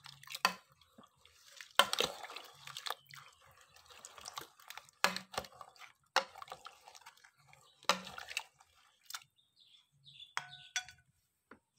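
A white plastic spoon stirring thin mung bean porridge with coconut milk in a rice cooker's inner pot: wet sloshing and splashing with light knocks of the spoon against the pot, in irregular strokes that die away near the end.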